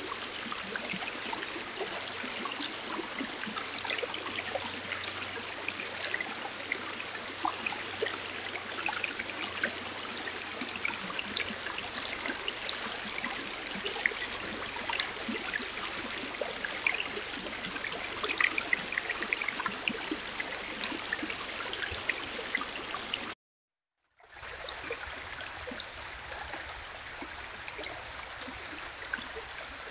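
Shallow rocky stream babbling over stones: a steady rush of water with many small splashes and trickles. It cuts out for a moment about 23 seconds in, then carries on a little softer, with a short high chirp near the end.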